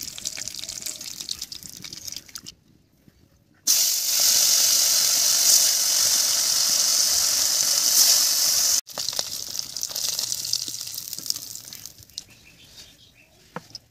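Fish frying in hot oil in a wok, a dense steady sizzle. It is loud in the middle stretch, stops abruptly, then returns quieter and dies away.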